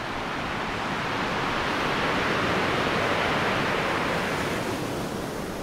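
Ocean surf: one long wash of breaking waves that swells and then fades away.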